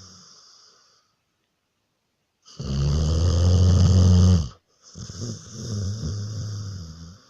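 Snoring in separate breaths. One snore fades out in the first second, a loud one comes about two and a half seconds in and lasts about two seconds, and another begins just after five seconds in.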